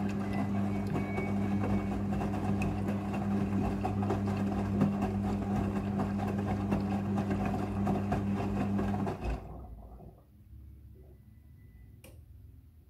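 Front-loading washing machine running in its rinse cycle: a steady motor hum that cuts off about nine seconds in, followed by one sharp click near the end.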